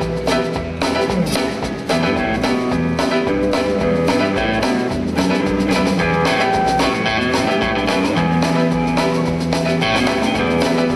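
Background music: a guitar-led band piece with a steady drum-kit beat.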